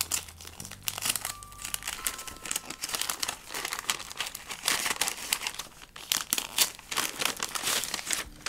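Paper gift wrapping crinkling and rustling in a rapid run of irregular crackles as hands unfold and open a small packet.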